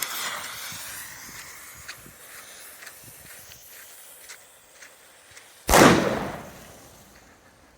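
A fuse hissing and sputtering for several seconds, then one loud boom from a homemade star cannon firing, dying away over a second or two. The shot blew out the reused tube.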